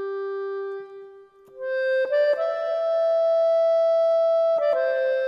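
Background music: a slow tune of long held notes, fading briefly about a second in before a new phrase begins.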